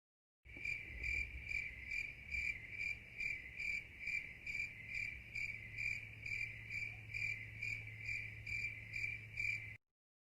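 A cricket chirping in a steady rhythm, a little over two chirps a second, over a low steady hum; it cuts off suddenly near the end.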